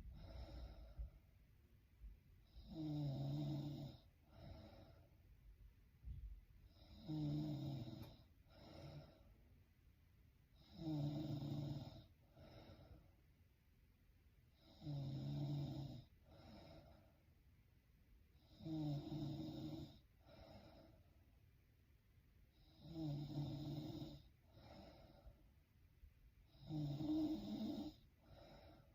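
A woman snoring in her sleep, about one snore every four seconds. Each snore is followed by a shorter, softer breath.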